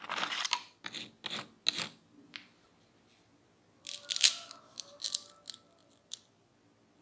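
A crisp deep-fried potato churro snapped in half by hand: a sharp crunching crackle about four seconds in, the loudest sound, with a few lighter crackles after. Before it, a run of crackly rustles as the churro is lifted out of its paper-lined basket.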